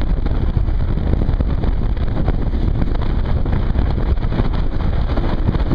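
Steady loud rush of wind buffeting the microphone and water spraying while riding a banana boat towed at speed.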